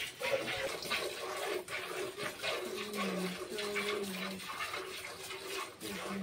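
Hand-milking a cow: jets of milk squirting in a steady rhythm into a steel pail that already holds milk.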